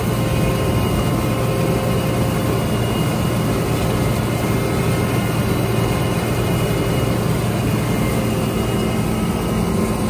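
John Deere combine harvester running close by while picking up and threshing windrowed grass: a loud, steady mechanical din of engine and shaking separator parts, with a few steady humming tones.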